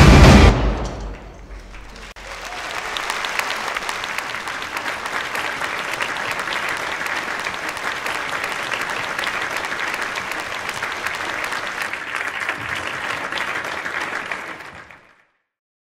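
A brass-and-drum marching band's music cuts off about half a second in, and a large audience then applauds steadily for about twelve seconds before the applause fades out near the end.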